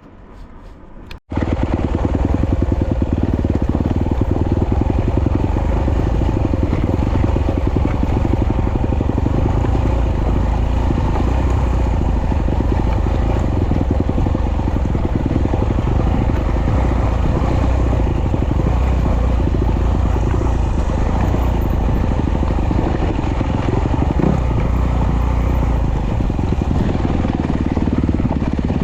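Off-road trail motorcycle engine running loud and steady under way, starting abruptly about a second in.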